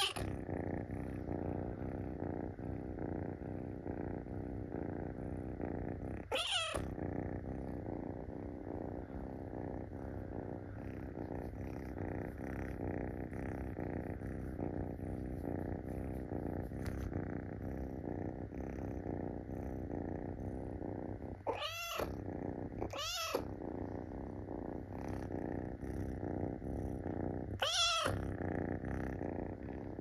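Munchkin kitten purring steadily, close up, while being stroked, and breaking in with short meows: one at the start, one about six seconds in, two close together a little past twenty seconds and one near the end. The meows are the kitten pestering to be petted.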